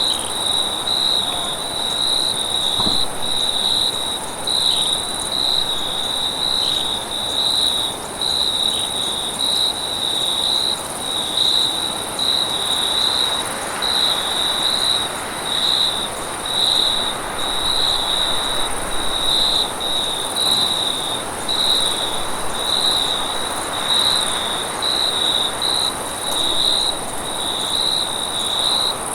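Night-time insect chorus dominated by a steady cricket trill, a continuous pulsing high chirp over a faint background hiss.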